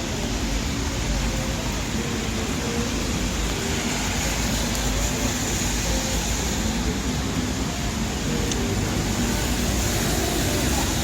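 City street ambience in the rain: a steady hiss of rain and of traffic on wet roads, with faint snatches of passers-by's voices.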